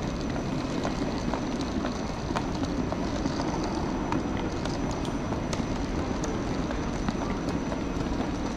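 Wheels of rolling suitcases rumbling steadily over a polished tile floor, with scattered light clicks.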